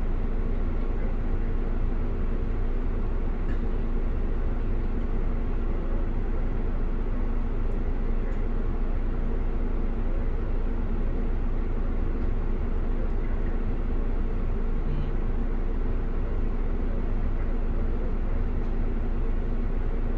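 Steady engine and road noise inside a moving bus: a constant low rumble with an even hum.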